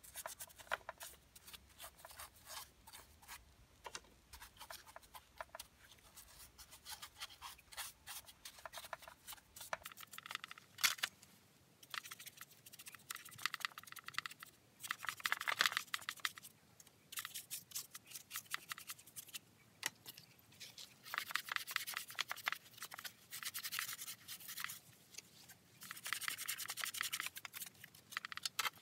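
Stiff brush scrubbing caked dirt off the plastic housing of a Stihl MS170C chainsaw: quick back-and-forth strokes coming in bursts with short pauses.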